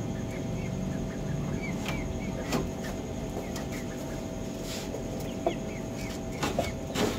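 Chickens in a coop clucking, with a few short louder calls and many small high chirps over a steady background hum.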